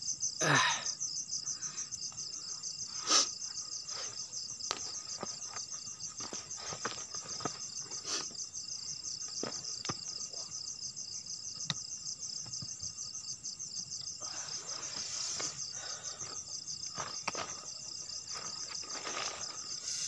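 Night insects keep up a continuous, fast-pulsing high chorus, with scattered small clicks and a stretch of rustling around the middle. Near the start a short falling groan rises above it.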